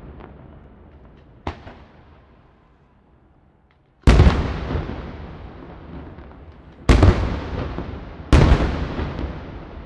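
Firework salutes exploding: a fading rumble and a single small crack, then three loud booms, the first about four seconds in and the other two close together near the end, each followed by a long rolling echo.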